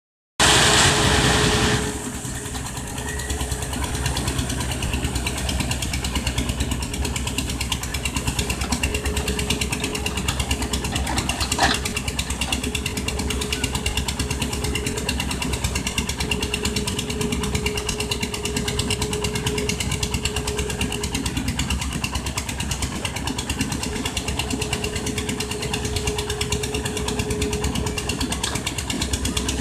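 Excavator's diesel engine running steadily, after a loud rush of noise in the first second or so, with one sharp knock about twelve seconds in.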